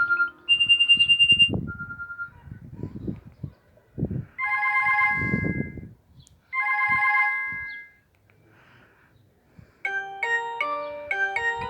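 Alcatel OT-2012D phone playing ringtones through its small speaker. A beeping electronic melody stops about a second and a half in. Low knocks and rustles follow, then two held electronic chimes sound, one after the other. Near the end a new ringtone starts, a quick melody of bell-like notes.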